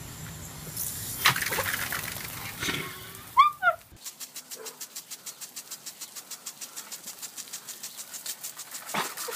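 A garden hose running onto a wet concrete patio, with a short, high, wavering squeal about three and a half seconds in. Then, after a cut, a lawn sprinkler ticks rapidly and evenly, about six clicks a second.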